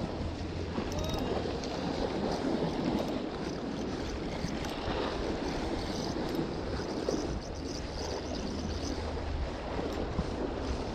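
Sea waves washing against the shore, a steady surf wash with a low wind rumble on the microphone.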